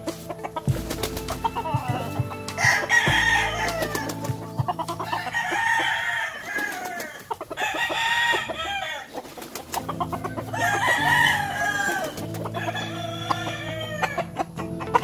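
Rooster crowing repeatedly, about five crows roughly two seconds apart.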